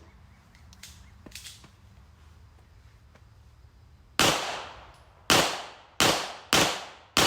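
Five gunshots, the first about four seconds in and the other four within about three seconds after it, each followed by a trailing echo. A few faint knocks come before the shots.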